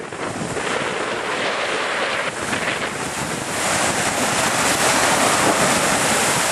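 River water splashing and surging as SUVs drive through a shallow ford, pushing bow waves. It grows louder about three and a half seconds in, as a Hyundai Tucson ploughs through close by.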